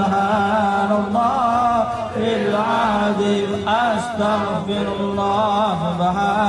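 A group of men chanting an Islamic devotional recitation together: a wavering, ornamented melody sung over a steady held low note, without a break.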